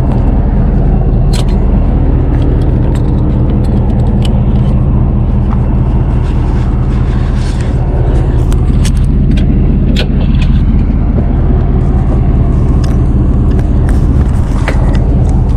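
A vehicle engine idling steadily, with scattered metallic clicks and scrapes over it.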